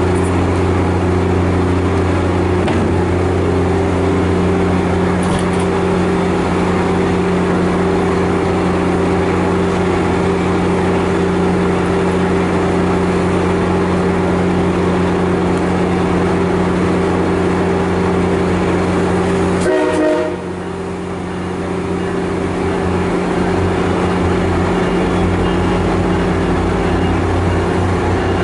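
Diesel-hauled MARC commuter train standing at the platform, its engine running with a loud, steady low drone. About twenty seconds in the drone dips suddenly, then builds back up with a rougher, uneven low rumble as the train gets under way.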